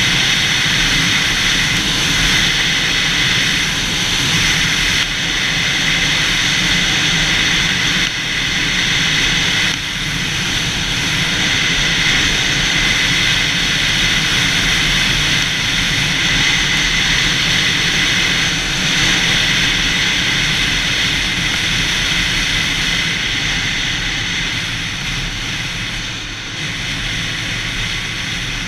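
Yamaha YZF-R6 sport motorcycle under way, its engine running steadily under a continuous rush of wind noise.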